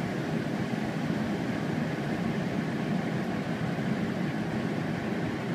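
Steady low rumble of a John Deere S680 combine harvester running under load on a steep slope, its drive wheels spinning out.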